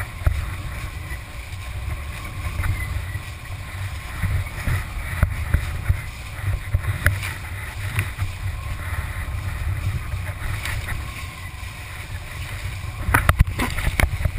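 Wind buffeting the microphone and water rushing and splashing as a kiteboard skims across the sea, with a burst of sharper splash hits near the end.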